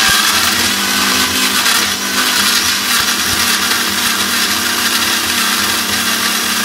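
Electric mixer grinder running steadily and loudly, grinding mango pieces into a smooth puree in its stainless steel jar.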